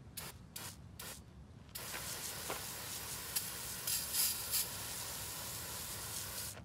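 A jet of liquid from a spray nozzle hissing steadily onto a greasy, cast differential housing, starting about two seconds in and cutting off near the end. A few short clicks come in the first second.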